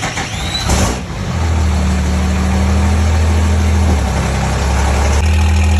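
Cummins 6.7 L diesel engine in a Ram drag-racing truck catching about a second in, then idling with a steady, deep hum.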